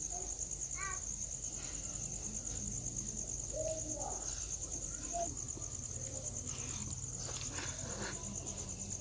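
Crickets chirping in one steady, high-pitched, pulsing trill.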